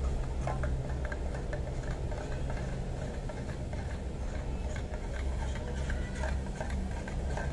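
Coffee being stirred in a stainless steel mug: light, irregular clinks over a steady low hum.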